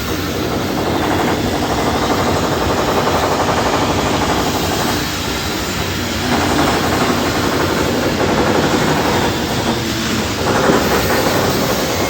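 Loud, continuous industrial machinery noise with a fast, steady rattle underneath. It eases off slightly about five seconds in and again near ten seconds.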